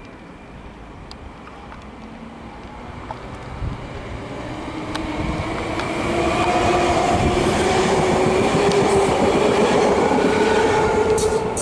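Koleje Śląskie EN75 Stadler FLIRT electric multiple unit approaching and running past close by. Its wheels rumble on the rails and its traction drive whines in several tones that rise slightly in pitch, the sound growing much louder over the first six seconds and then holding.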